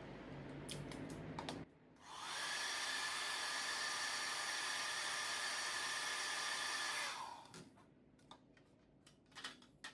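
Handheld hair dryer switched on and blowing steadily for about five seconds, winding down near the end, used to warm the adhesive of a helmet chin mount before sticking it on. A few light clicks of small plastic parts being handled come before and after it.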